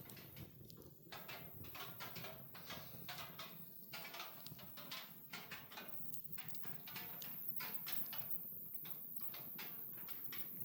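Wood fire crackling: many irregular snaps and pops over a steady low rustle.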